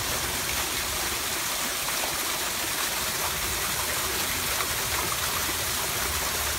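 Small waterfall: thin streams of water falling down a rock face and splashing into a shallow pool, a steady, even rush of water.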